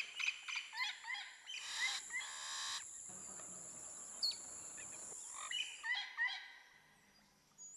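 Birds chirping: many short, rising chirps repeating quickly, over a steady high hiss that stops about six seconds in. It all fades to near quiet toward the end.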